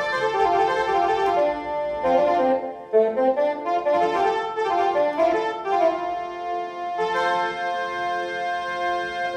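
Electronic keyboard playing a melody of quick, stepping notes, ending on a chord held steady for the last couple of seconds.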